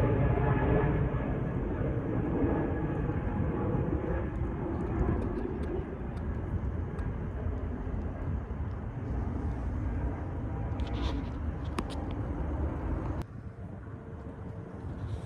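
Jet airliner passing near the airport, a wide rushing engine noise that slowly fades away, then drops off suddenly near the end.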